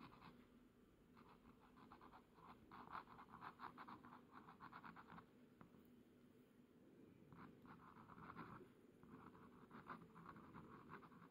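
Faint scratching of a glass dip pen nib on a paper card as it writes, in runs of quick strokes with a pause of about two seconds midway.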